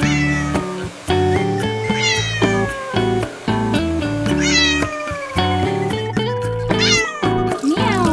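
A cat meowing about four times, roughly every two seconds, each meow falling in pitch, over a bouncy background tune.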